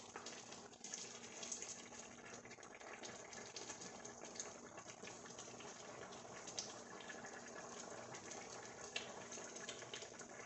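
A pan of lentil stew simmering while a wooden spoon stirs it, with faint bubbling and sloshing of the liquid.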